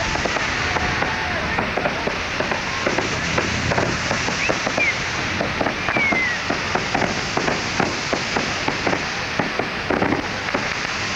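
Firecrackers popping in quick, irregular succession over a steady background hiss.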